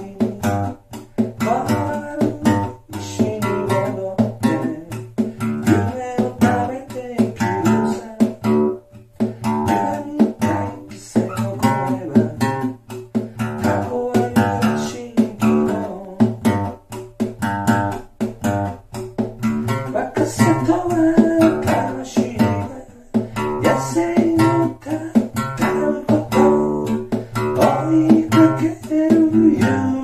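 A man singing in a high key to his own strummed acoustic guitar, played on a single string, with a steady strumming rhythm under the voice and short breaks between phrases.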